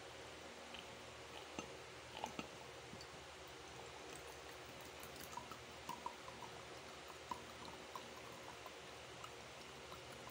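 Drink poured from a screw-top bottle into a large round glass: faint trickling and dripping into the glass, with a few small clicks early on and a run of little splashy blips as the stream lands.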